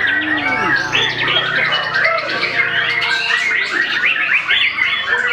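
White-rumped shama singing continuously: a fast, varied stream of whistles, glides and harsh chattering notes.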